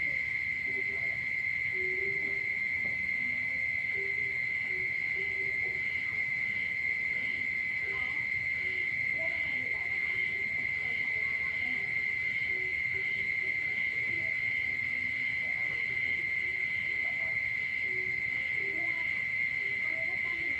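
Night chorus of frogs and insects after rain: a loud, steady high-pitched trill that never breaks, a faint regular pulsing call a little over once a second above it, and short scattered low croaks of frogs beneath.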